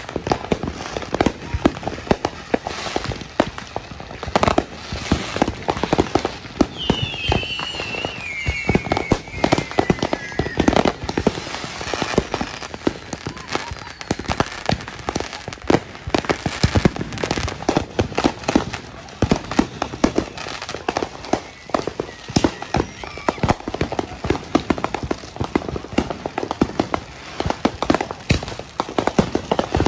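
Fireworks and firecrackers going off all around in a continuous rapid crackle of pops and bangs, several a second. From about seven to eleven seconds in, a wavering whistle falls steadily in pitch.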